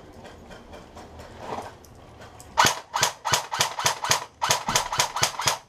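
Rapid airsoft fire: after a quieter stretch with faint clicks, a string of sharp cracks begins about two and a half seconds in and runs at about four a second.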